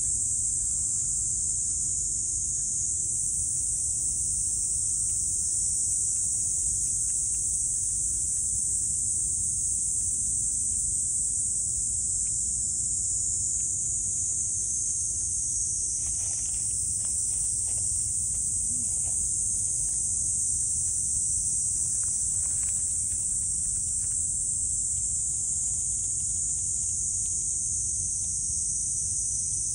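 A steady, high-pitched insect chorus shrilling without a break. A few faint soft clicks come a little past the middle.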